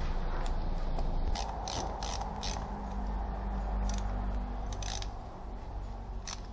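A rag rubbing and scraping over the metal housing of a BMW N46 brake vacuum pump as it is wiped clean by hand, with a run of irregular short ratchety clicks. A steady low hum runs underneath.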